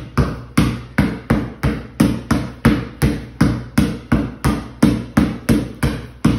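A basketball dribbled on a concrete floor: a steady run of sharp bounces, about three a second, each with a brief ring.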